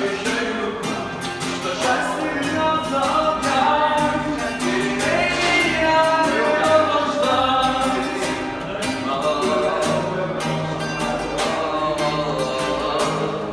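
A male street musician singing while strumming an acoustic guitar.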